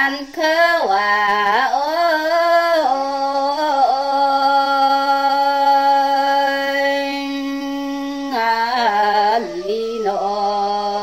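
A woman singing a Red Dao (Iu Mien) folk song unaccompanied, with sliding phrases and one long note held for about five seconds in the middle, then a few shorter gliding phrases toward the end.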